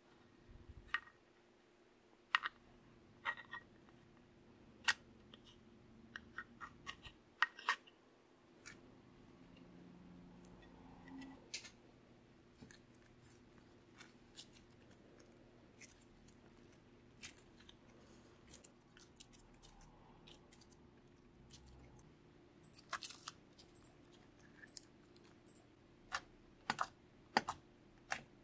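Slime being squeezed and mixed by hand, giving scattered small sticky clicks and pops, coming thicker near the end.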